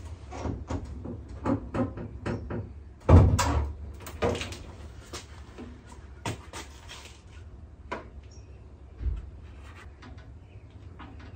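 A Fox-body Mustang's steel hood being unlatched, raised and handled: a run of metal clicks and knocks, with one heavy thump about three seconds in.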